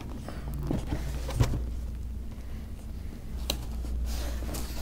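Cardboard box being handled and turned on a tabletop, with soft scrapes and a few short knocks, over a low steady hum.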